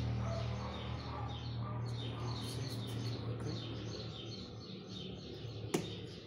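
Birds chirping repeatedly in short falling notes, over a steady low hum that fades. A single sharp click comes near the end.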